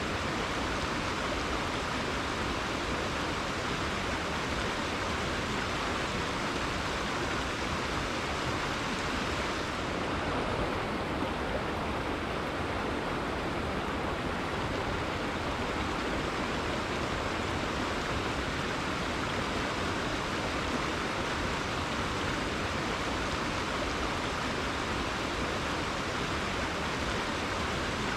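Rainforest river water flowing and rushing steadily, an even hiss with no breaks. The highest part of the hiss thins for a few seconds about ten seconds in.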